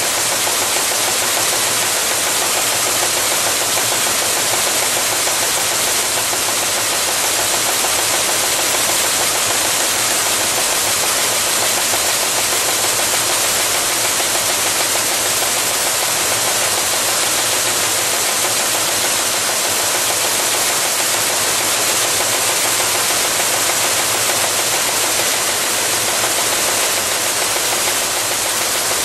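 Steady machine noise from a Yuanrox high-speed can-body welding machine running production, an even, mostly high-pitched hiss with no breaks.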